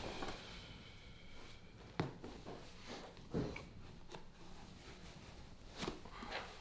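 Quiet room tone broken by a few soft clicks and knocks from small objects being handled, four short sounds spread over several seconds.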